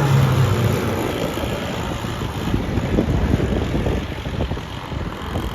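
Gas-powered RC boat's petrol engine running out on the water, a steady drone, with wind buffeting the microphone in the middle.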